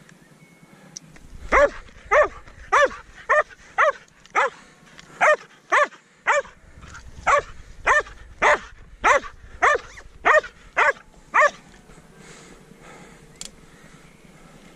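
Border collie barking: a run of about seventeen short, high-pitched barks, roughly two a second, starting about a second and a half in and stopping near the end.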